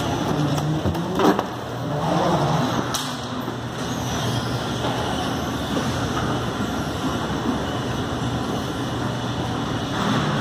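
Escalator running: a steady low mechanical hum under even background noise, with one short knock about a second in.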